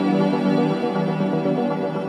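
Calm ambient background music with long held notes.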